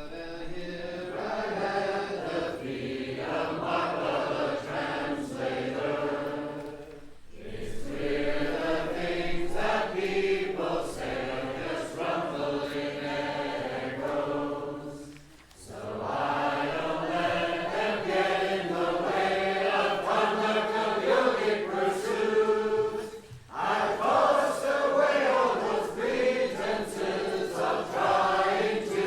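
Voices chanting a melodic Buddhist devotional song (doha) in long sustained phrases of about eight seconds each, with short breaks between phrases.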